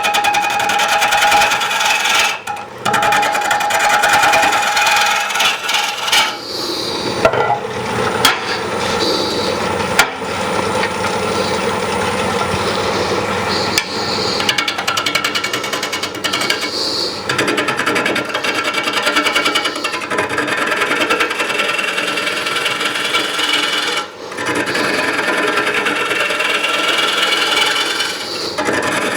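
Turning tool cutting a spinning green-wood bowl blank on a wood lathe: a continuous scraping, rasping cut, broken briefly about two and a half seconds in and again near twenty-four seconds as the tool comes off the wood.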